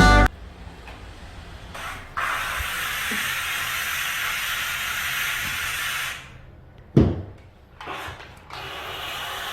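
Kärcher SC4 EasyFix steam cleaner jetting steam: a brief puff, then about four seconds of steady hissing spray. A knock follows about seven seconds in, then the hiss starts again near the end.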